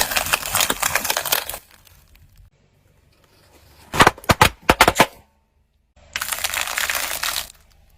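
Brittle objects crunching and snapping as they are crushed, most likely under a car tyre: a dense crackling crunch at the start, a quick run of about five sharp cracks near the middle, and another crackling crunch near the end.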